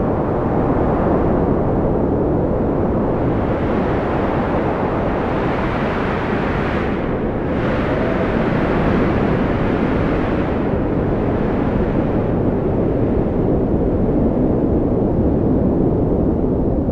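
Strong wind blowing hard and steadily, a deep rushing noise that swells and eases in gusts, with faint whistling tones now and then.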